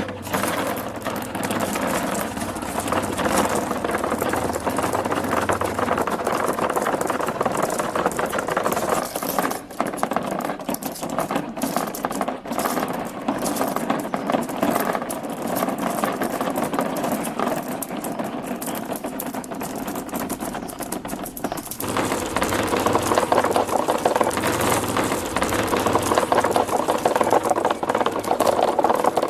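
Many marbles rolling and clattering down a plastic marble-run track: a dense, continuous rattle of tiny clicks that grows louder about three-quarters of the way through.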